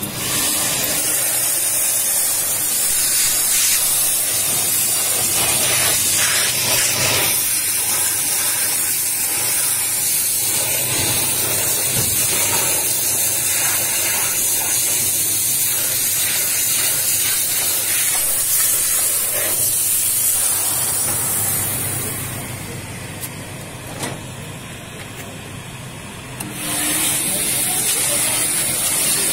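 Steam jet from a shoe-cleaning steamer's hose nozzle hissing loudly as it is played over a shoe. The jet cuts off about 22 seconds in, a single click comes about two seconds later, and the hiss starts again a few seconds after that.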